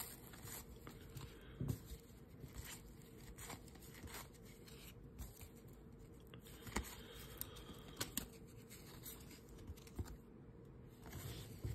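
Cardboard trading cards flipped through by hand, one card slid off the stack after another: faint rubbing of card stock with scattered soft flicks and ticks at irregular intervals.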